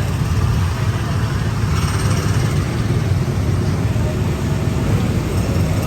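Steady low rumble of a Tomorrowland Transit Authority PeopleMover car gliding along its elevated track, heard from on board, with an even hiss of moving air over it.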